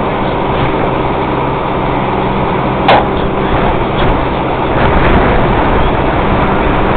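A fire engine's motor runs steadily at the scene under a broad rushing hiss of water turning to steam on the burning car. A single sharp knock comes about three seconds in.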